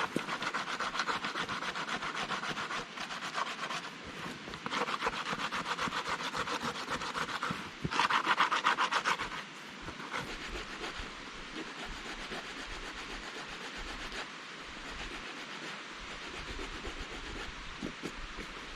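Pumice stone scraped briskly back and forth over the flesh side of a dried fur pelt, sanding and softening the hide as the last step of tanning. The fast, even strokes come in three spells, the last one loudest, then stop about halfway through, leaving a softer steady hiss.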